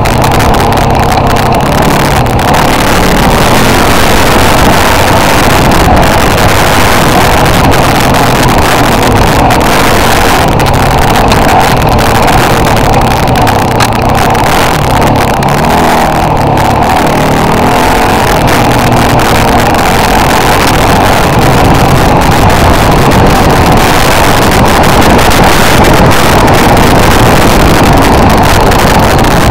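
Off-road vehicle engine running loud and continuous as it drives a rough dirt trail, its note rising and falling with the throttle.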